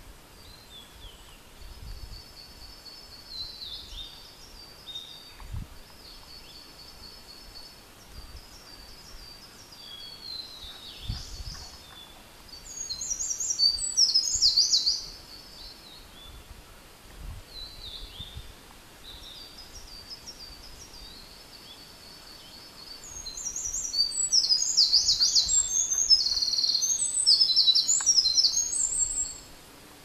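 Eurasian wren singing. Two loud bouts of rapid, high trilled notes come through, a short one about twelve seconds in and a longer one of roughly six seconds starting about 23 seconds in. Fainter rapid high notes run between them. It is the song of a parent wren nesting nearby.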